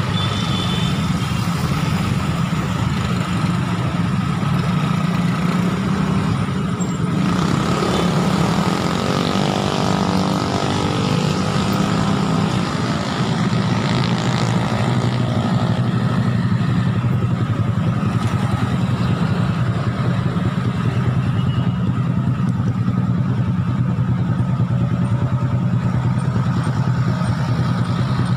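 Idling motorcycle engines in stopped traffic at a red light: a steady low engine hum with road noise. About nine seconds in, another pitched engine sound comes in briefly and fades by about thirteen seconds.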